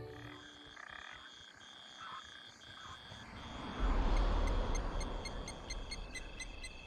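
Chorus of frogs calling: a steady high trill broken by short gaps, with a quicker pulsing call above it. A low rumble comes in about four seconds in.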